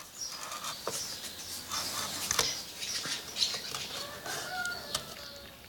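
Kitchen knife scraping the seeds out of split vanilla pods on a wooden cutting board, in faint, scratchy strokes.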